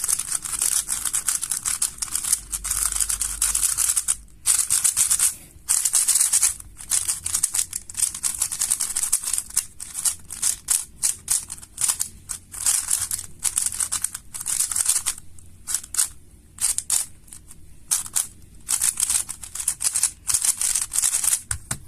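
New Moyu Weilong WR M 3x3 speedcube being turned quickly by hand: dense runs of plastic clicking and rattling from its layers, stopping and starting with short pauses. The turning is sandy out of the box, typical of a cube that still needs breaking in.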